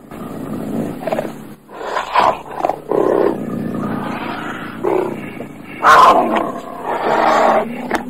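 Cougar giving a string of harsh growling calls of varying length, the loudest about six seconds in.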